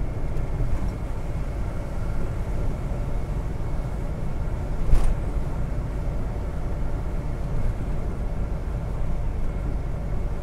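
Steady road noise inside a car cruising on a wet expressway: a low rumble of tyres and engine, with one sharp knock about halfway through.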